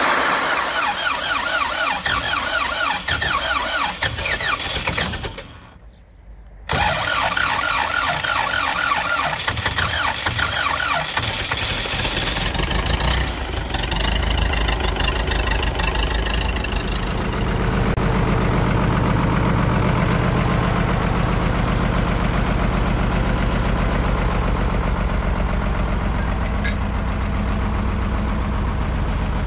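Old UTB Universal tractor's diesel engine cranked on the starter motor in a cold start, with a pause of about a second before cranking resumes. It catches about 13 seconds in and settles into a steady idle.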